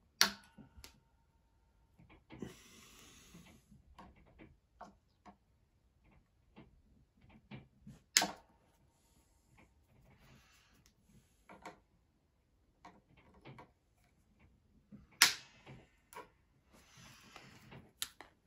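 Wire cutters snipping the excess ends off freshly fitted steel guitar strings at the headstock: a few sharp snaps spaced several seconds apart, with light clicks of handling in between.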